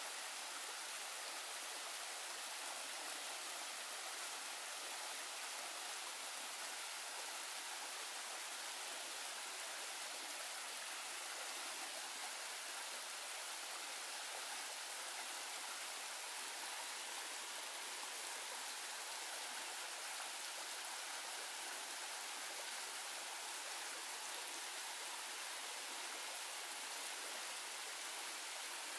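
Steady, even rushing of a stream's running water.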